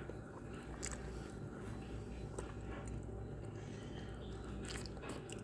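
Faint wet mouth sounds of a man chewing and sucking honey out of a piece of raw beeswax honeycomb: a few soft clicks over a steady low hum.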